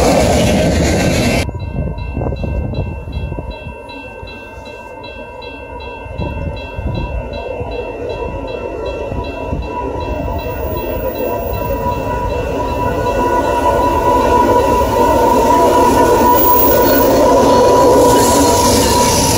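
The last cars of a freight train clatter past. About a second and a half in the sound drops, and a Canadian Pacific freight train led by a GE ES44AC diesel locomotive approaches, growing steadily louder until the locomotive passes close by near the end.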